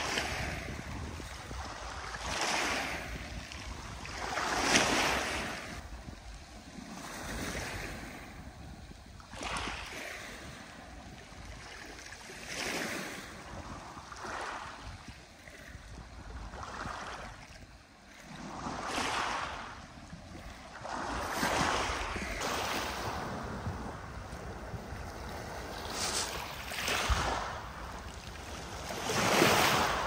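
Strong storm wind blowing in gusts, surging and easing every two to three seconds.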